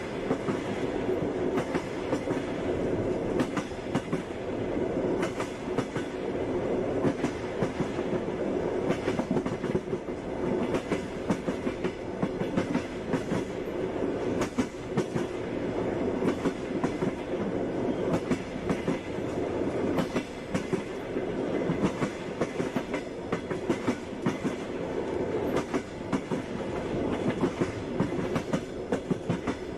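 Moving passenger train: a steady rolling rumble with the clickety-clack of the wheels knocking over the rail joints.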